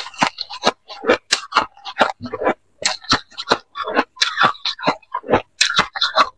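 Close-miked crunching and chewing of a mouthful of granular buckwheat ice, a rapid, irregular run of crisp crunches, several a second.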